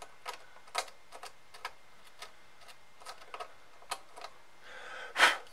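A metal probe tip scraping and picking at charred, burnt material on a circuit board, making irregular small ticks and scratches. Near the end comes a longer, louder scrape.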